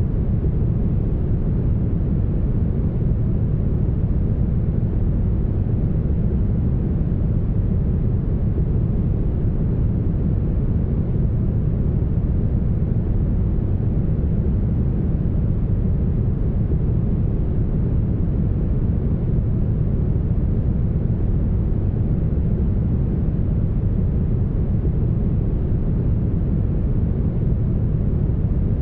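Smoothed brown noise: a steady, deep rushing hiss, heaviest in the low bass and muffled in the highs, with no change in level or character.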